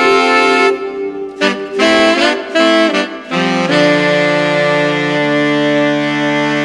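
Background instrumental music: long held notes, a run of short notes in the middle, then a long held chord.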